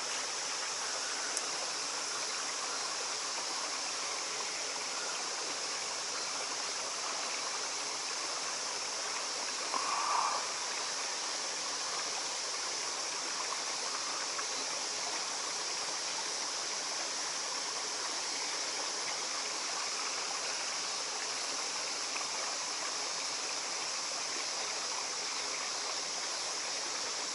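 Steady rush of stream water flowing through a narrow rock gorge, an even hiss-like wash that doesn't change. A brief small sound stands out about ten seconds in.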